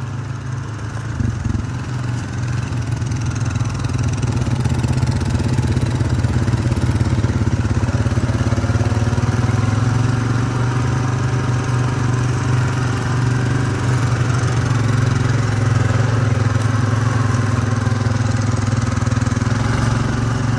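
ATV engine running steadily while the quad is ridden along, getting louder over the first few seconds and then holding a steady drone.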